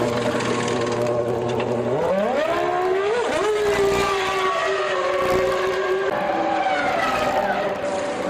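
Formula One car's V10 engine, running at a steady low pitch, then revving up in a rising glide about two seconds in and holding a higher steady note before the pitch drops near the end.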